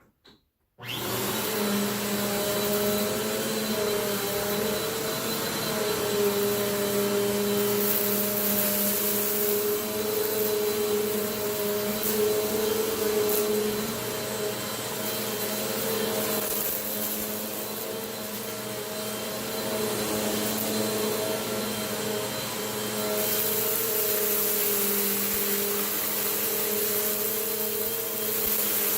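Vacuum cleaner switched on about a second in, then running steadily with a humming motor tone. It picks up crunchy dirt, and the hiss of the suction swells and eases as it passes over the debris.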